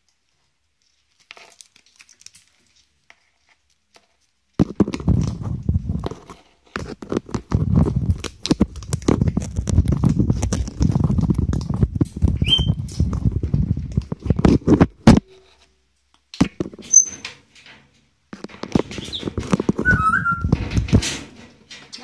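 African grey parrot working at the phone taped to the aviary wall with its beak and feet: scraping, scratching and knocking right against the phone's microphone, in long loud bursts starting a few seconds in. A few short high squeaks are heard among the scraping.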